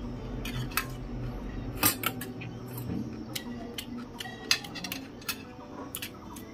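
Metal spoon clinking and scraping against a stainless steel plate and bowls: a series of irregular light clinks, the loudest about two seconds in.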